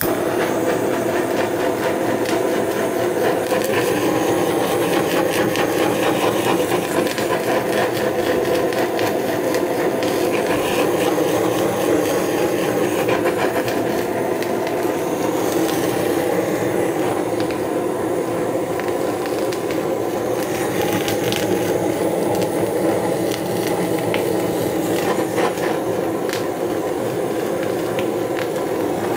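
A Big Shot GT8000 handheld butane blowtorch burning with a steady jet roar as it sears the skin of fish. It comes on at the start and holds an even rushing sound throughout.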